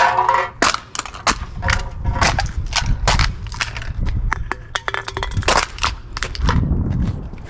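Junk and debris being crunched and clattered as it is handled: a rapid, irregular run of sharp cracks and knocks, with a brief metallic ring at the start.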